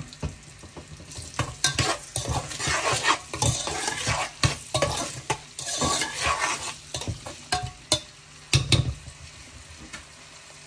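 A utensil stirring and scraping vegetables frying in a pan, with steady sizzling and repeated knocks against the pan. The stirring dies down near the end, leaving the sizzle.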